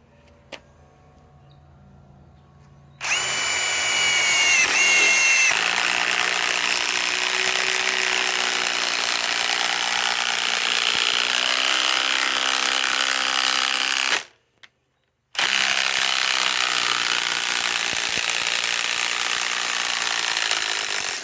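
Ryobi PSBIW25 cordless compact impact wrench running under load. A high whine for the first couple of seconds gives way to a steady hammering as it drives a fastener into wood. It stops for about a second, then hammers again until near the end.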